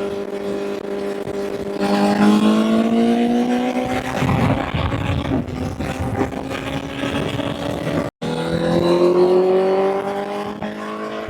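Honda CBR1000 inline-four motorcycle engine under way, rising in pitch as it pulls up through the revs, then again after a brief break in the sound just past the middle. A rushing noise sits under the engine in the middle stretch.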